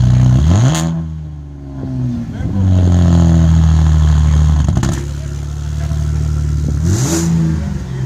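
2016 Cadillac XTS's V6 engine idling at the exhaust tips, with two quick throttle blips about a second in and again about seven seconds in: each time the revs climb sharply, then drop back to idle.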